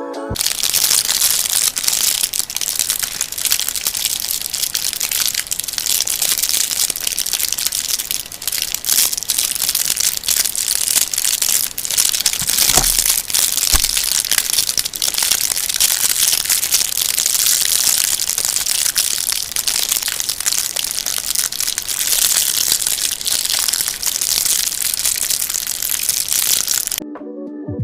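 Continuous crinkling and crackling of a material being crumpled and crushed: a dense stream of small clicks that stops abruptly near the end.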